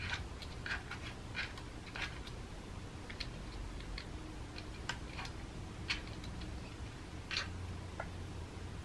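Cat eating dry kibble ('crunchies') from a dispensing feeder: a scattered series of sharp crunches and clicks at irregular intervals.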